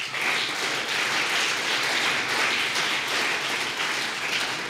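Audience applauding steadily, the clapping easing off a little near the end.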